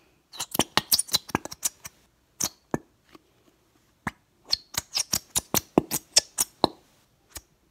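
A squeezed bottle of Elmer's glitter glue sputtering: glue and air squirting out of the nozzle in sharp squelching pops, two quick runs of them with a few single pops between.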